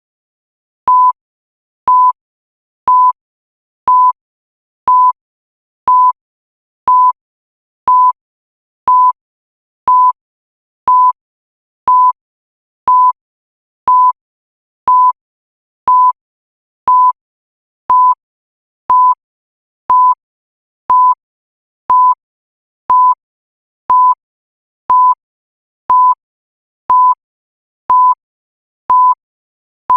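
Electronic countdown-timer beep: a short, single-pitched tone sounding once every second with silence between, each beep marking one second of the countdown.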